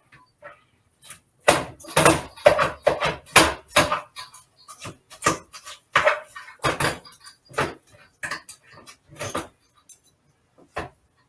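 Kitchen utensils and cookware clattering: an irregular run of sharp knocks and clicks, with some heavier thuds in the first few seconds.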